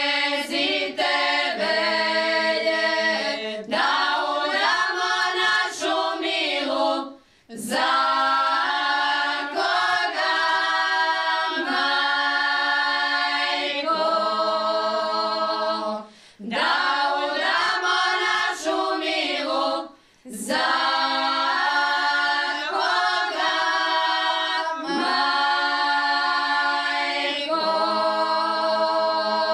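Women's folk singing group singing a traditional Šokac song a cappella, several voices in long held phrases. The singing breaks off briefly between phrases three times, for a breath.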